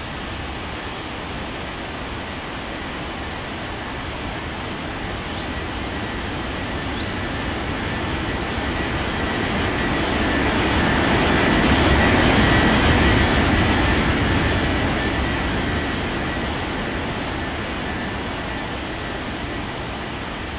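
Airbus A330 jet engines passing, a steady rush with a faint high whine that swells to a peak about halfway through and then fades away.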